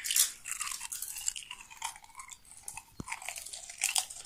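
Potato chips being crunched and chewed close to the microphone, in irregular crisp crackles.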